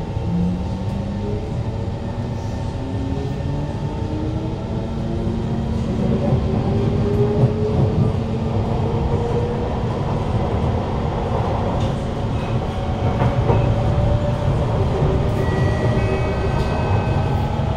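Kawasaki Heavy Industries C151 train's GTO-VVVF traction inverter and motors whining as the train accelerates, heard inside a motor car: several tones climb steadily in pitch over the first ten seconds or so, over wheel and track rumble. The whine then levels off as the train runs on at speed.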